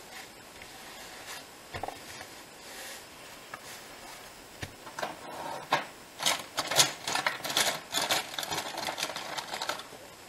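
A hand rubbing briskly back and forth over paper and card, pressing the layers of a card bookmark flat: a quick run of dry rubbing strokes from about halfway in, with a few light knocks before it.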